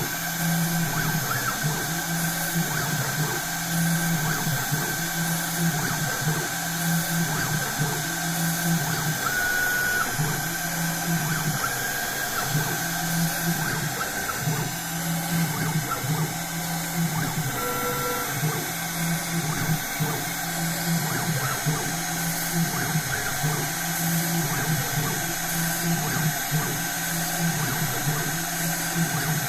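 CNC machine machining a printed circuit board: the high-speed spindle whines steadily while a low motor hum pulses in a repeating cycle about once a second.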